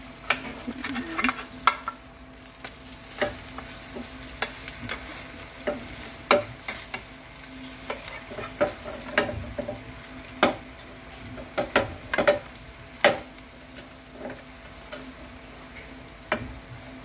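Metal spatula scraping and tapping against a square frying pan, in many irregular clicks and scrapes, as a thin egg-white omelet is cut and turned. A faint sizzle of the egg frying over low heat and a steady low hum lie underneath.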